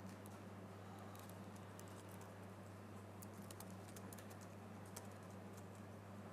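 Faint typing on a computer keyboard: irregular, scattered keystrokes, over a steady low hum.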